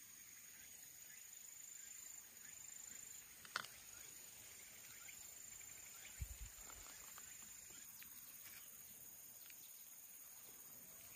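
Near silence: quiet outdoor ambience with a faint steady high-pitched hiss, one sharp click about three and a half seconds in, and a short low thump a little past six seconds.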